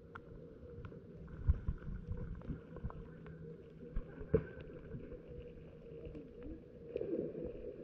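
Muffled rubbing and knocking of fabric against a covered camera microphone, with a couple of sharper bumps and a faint steady hum underneath.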